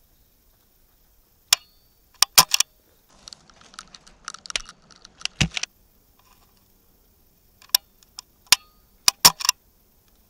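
Sharp mechanical clicks from an SSX-303 bolt-action airsoft sniper rifle being handled and fired, heard close up. There is a single click about one and a half seconds in and a quick group of three just after two seconds. Around four to five seconds comes a rustle with one heavier thud, then scattered clicks and another group of three near the end.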